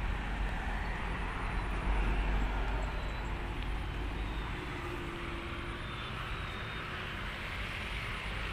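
Steady outdoor background noise: an even hiss over a low rumble, the rumble swelling briefly about two seconds in.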